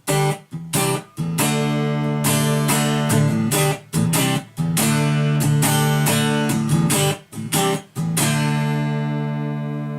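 Telecaster-style electric guitar played clean in the middle pickup position with no effects added, strumming a series of chords that ring between strokes. The last chord, struck near the end, sustains and slowly fades, showing the guitar's long resonance.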